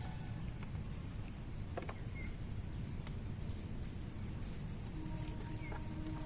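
Outdoor ambience: a steady low rumble with a cricket chirping evenly, about three chirps a second, and a few light clicks. A steady hum comes in about five seconds in.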